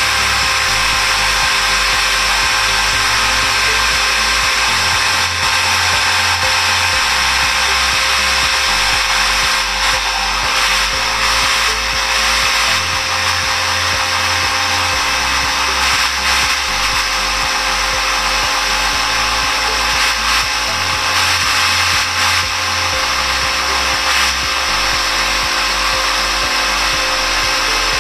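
DeWalt 650-watt corded jigsaw running continuously as it cuts wood, a steady motor whine with the blade's rasping, over background music with a low bassline.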